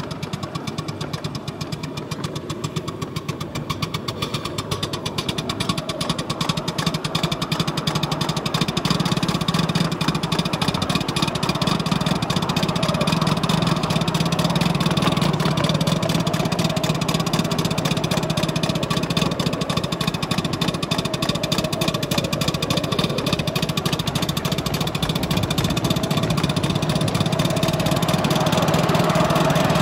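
Polly Trojan 5-inch gauge coal-fired miniature steam locomotive, fitted with a Kordina exhaust, running with a train of coaches: rapid exhaust beats and wheels on the rails, with the microphone riding just behind the engine. It grows louder about eight seconds in and stays up.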